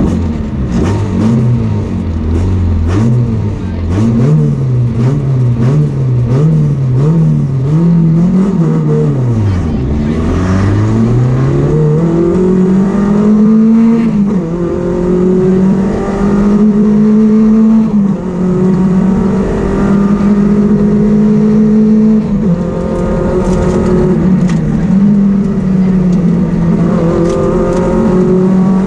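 Nissan rally car's engine heard from inside the cabin. For the first nine seconds the revs are blipped up and down about twice a second while the car waits at the stage start. About ten seconds in the car launches and accelerates hard, with a gear change a few seconds later. After that the revs stay high with brief lifts.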